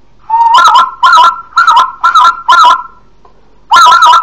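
Goose call blown on an empty shotgun shell cupped in the hands, imitating geese: about five honks roughly half a second apart, each breaking between two pitches, then after a short pause a fast run of honks near the end.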